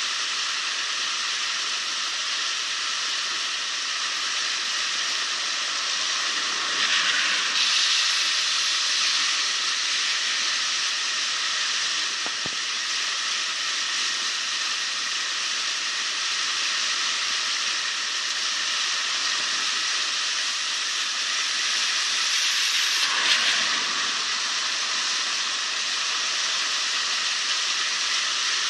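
Floodwater in an overflowing creek rushing and churning white against a metal pipe laid across the current: a steady rush of water. It swells louder briefly about seven seconds in and again about two-thirds of the way through.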